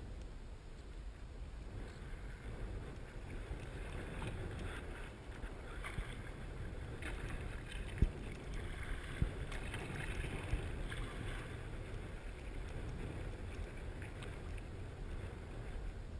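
Wind buffeting the microphone and water lapping against a kayak hull, with two sharp knocks a little over a second apart about halfway through.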